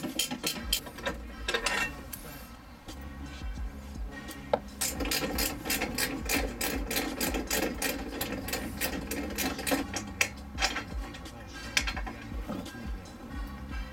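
Hand socket ratchet clicking in quick runs as it backs out the bolts holding a car's steel B-pillar floor brace bar, with a lull a couple of seconds in.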